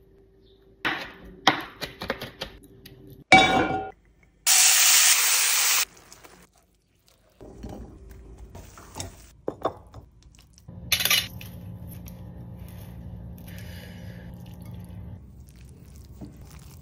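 Kitchen prep sounds: a metal fork clinking and scraping in a tin can, and utensils knocking against dishes in several short spells of clatter. A loud steady hiss lasting about a second and a half comes a few seconds in and cuts off suddenly, and a steady low hum runs through the last third.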